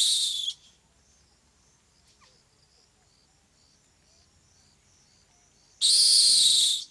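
Rock hyrax screaming: a loud, shrill call cuts off about half a second in, and a second scream lasting about a second comes near the end. Faint high chirps repeat evenly in the quiet between.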